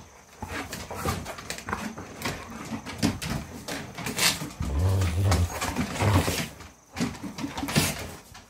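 Golden retrievers, an adult and a young puppy, play-fighting: low rumbling play growls, loudest a little after the middle, over scuffling and rustling as they wrestle on the paper-covered deck.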